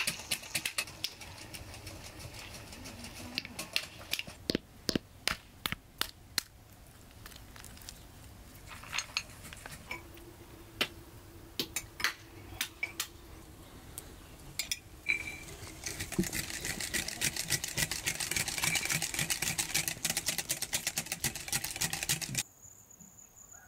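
Sharp knocks of walnuts being cracked with a hammer on a wooden stump. Then a spoon clinks now and then against a glass bowl, and eggs are whisked briskly in the bowl, a fast run of clicks that stops suddenly near the end.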